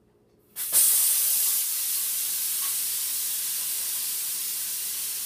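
A loud, steady hiss cuts in abruptly about half a second in, strongest in its highest, sharpest part, and holds on.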